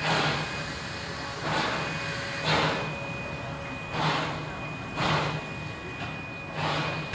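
Small steam tank locomotive chuffing slowly as it moves at walking pace: separate exhaust beats, a little uneven, about one a second.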